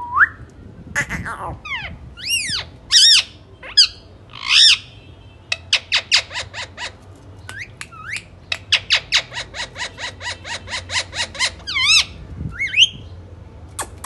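Indian ringneck parakeets calling: several loud squawks that rise and fall in pitch, then a fast run of short, sharp chips at about six a second, and a couple more squawks near the end.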